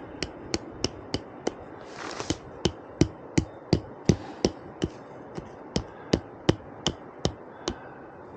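Hammer blows struck in a steady rhythm, about three a second, some harder than others.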